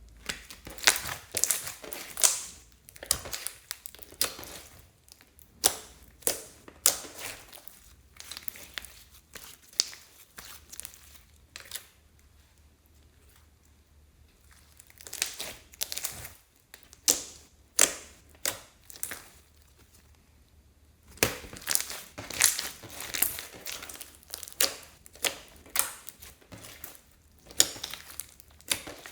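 Slime being squeezed and stretched by hand, giving clusters of sharp crackling pops with short pauses in between.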